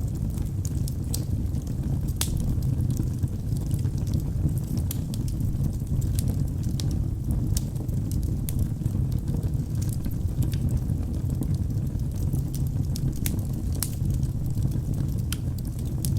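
Wood fire burning in a fireplace: a steady low rush of flames with frequent small, sharp crackles and pops at irregular moments.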